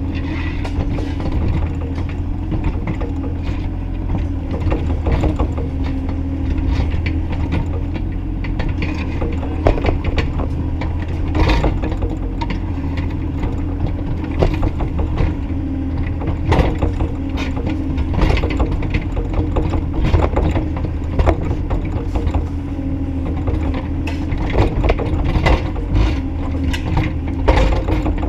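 Bobcat E35i compact excavator at work: its engine running with a steady low hum, with frequent short clanks and knocks from the machine's bucket and linkage.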